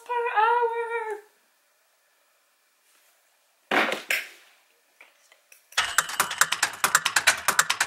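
A high, voice-like call with an arching pitch dies away in the first second. About four seconds in there is a short clunk as a toy model car is set down on a wooden shelf. From about six seconds in comes rapid clicking like typewriter keys, several strokes a second.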